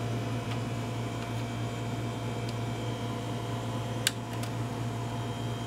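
Steady low hum throughout, with two faint clicks about four seconds in as a small plastic cable connector is pressed onto the printer's formatter board.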